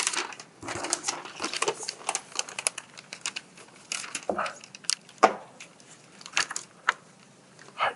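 A large paper sheet rustling and crinkling as it is handled and held flat against a magnetic board, broken by several sharp clicks of magnets being pressed on to fix it, the loudest about five seconds in.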